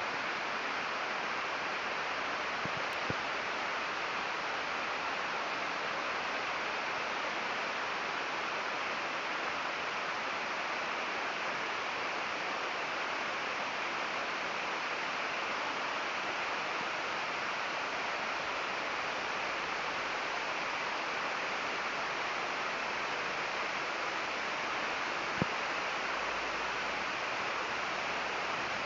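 Steady rain falling on trees, an even hiss, with two short clicks, one about three seconds in and one a few seconds before the end.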